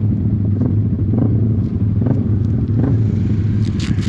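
Motorcycle engines idling together at a standing start, the nearest a Yamaha R15 V3's single-cylinder engine, with a few short throttle blips about a second apart.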